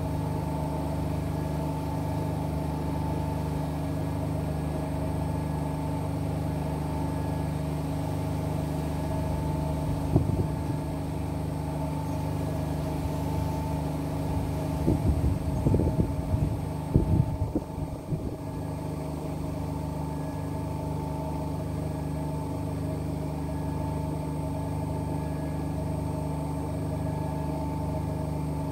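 Two front-loading washing machines, a Whirlpool FSCR70420 and an AEG L88840, running their rinse cycles side by side: a steady motor hum with a regular low pulsing, and a few louder knocks about ten seconds in and again around fifteen to eighteen seconds in.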